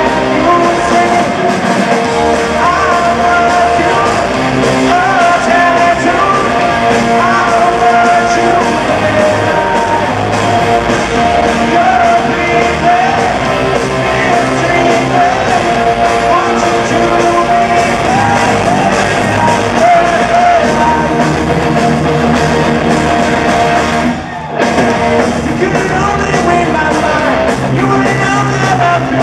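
Punk rock band playing live, a male lead voice singing over electric guitars, bass and drums. The band drops out for a split second near the end before coming back in.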